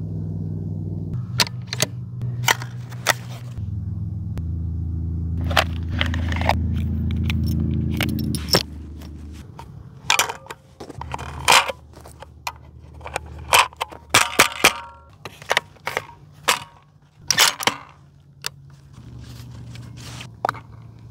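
6mm Creedmoor cartridges being pressed one by one into a rifle's box magazine, heard as a string of sharp metallic clicks, several close together through the middle. A low steady hum runs under the first half and fades at about nine seconds.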